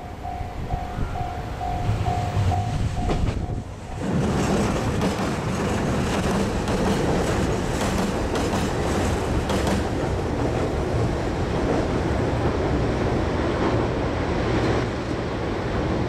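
A level-crossing bell ringing about twice a second, which stops abruptly about four seconds in. Then a diesel railcar running across a steel truss railway bridge, its engine and wheel noise loud and steady.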